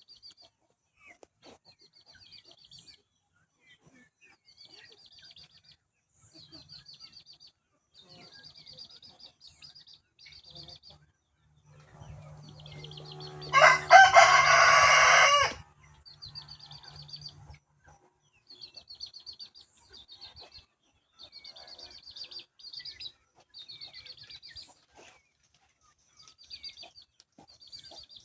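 A rooster crows once, loud and about two seconds long, near the middle. Small birds chirp and trill in short repeated phrases throughout.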